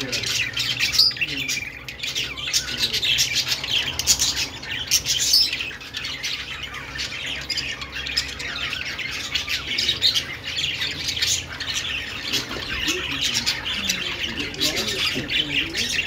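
A flock of caged budgerigars chirping and chattering all at once, a dense, continuous twittering that never breaks.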